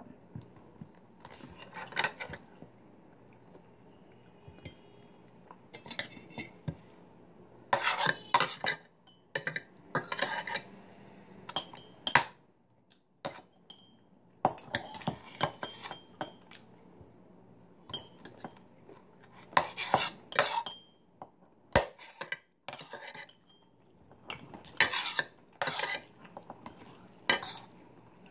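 Metal spoons and forks clinking and scraping against ceramic soup bowls and plates during a meal, in short clusters every few seconds with quieter gaps between.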